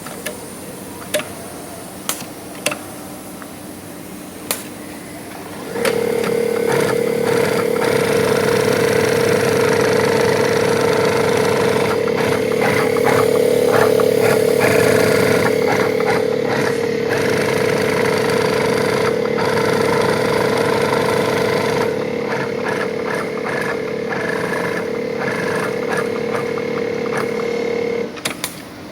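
Juki LU-2860 two-needle walking-foot industrial sewing machine with side cutter sewing heavy material: a few sharp clicks, then about six seconds in the machine starts and runs steadily at speed with a high-pitched whine, stopping shortly before the end.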